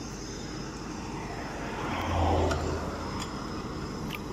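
Steady engine and traffic noise, with a road vehicle passing close about two seconds in, its low hum swelling and then fading.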